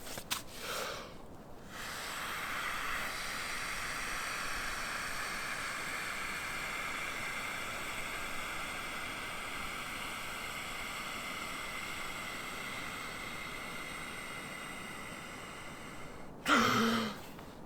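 A person blowing out one long, steady breath for about fourteen seconds, slowly fading as the air runs out, ending in a short voiced gasp near the end.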